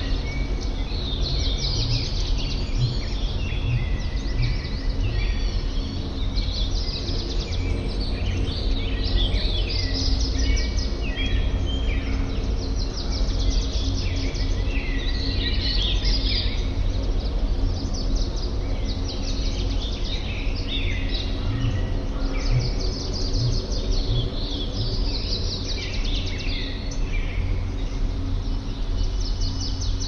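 A chorus of many birds chirping and trilling throughout, over a steady low rumble and soft held background music tones.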